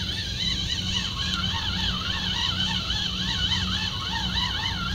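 A siren-like warbling tone, its pitch rising and falling about two to three times a second, over a steady low hum.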